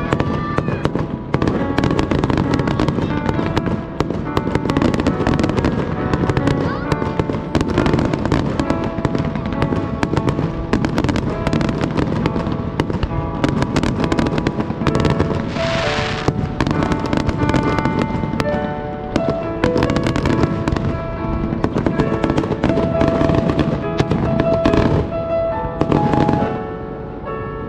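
Fireworks display: rapid, overlapping shell bursts and crackling, with a brief hissing burst about sixteen seconds in, over music playing steadily.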